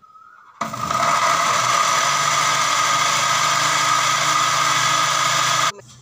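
Electric blender motor running as it purees chopped tomatoes. It starts under a second in, runs steadily and loudly for about five seconds, and cuts off suddenly.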